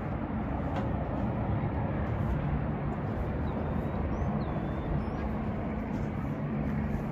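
Steady outdoor background noise, a low rumble with a faint hum under it, and a few faint high chirps around the middle.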